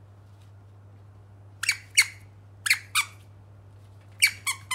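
Squeaker in a plush dog toy squeezed by hand, giving short, high squeaks in three quick groups of two or three.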